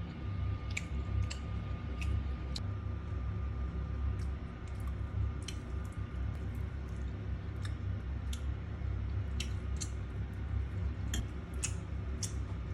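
Scattered light clicks and taps, irregular, over a steady low hum.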